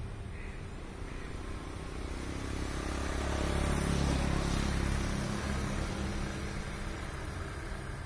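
A motor vehicle passes: its engine grows louder, peaks about halfway through and fades away. A few faint bird chirps come at the start.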